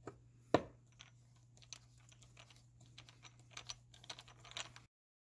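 Hand screwdriver driving a small screw through a metal door strike plate into a wooden jamb: a sharp knock about half a second in, then a run of small irregular clicks and scrapes as the screw turns. The sound cuts off suddenly near the end.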